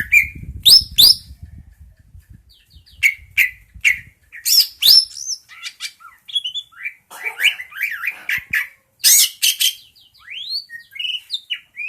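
A pet bird calling in clusters of short sharp chirps and quick rising whistles, with brief pauses between bursts, over a low rumble in the first couple of seconds.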